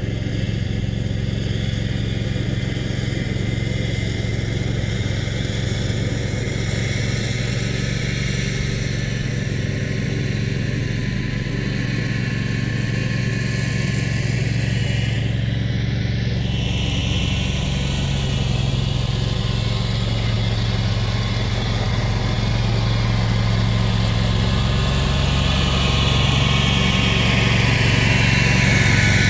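Engine of a Dixon zero-turn ride-on mower running steadily while mowing, distant at first and growing louder as the mower drives up close near the end.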